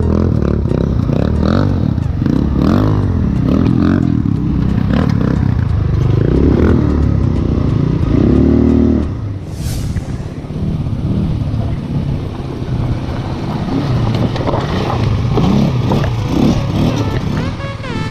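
Quad bike (ATV) engine revving up and down as it is ridden over a trail, with clatter and scraping from the ride. About nine seconds in, the rising and falling engine note drops away and the sound turns rougher and noisier.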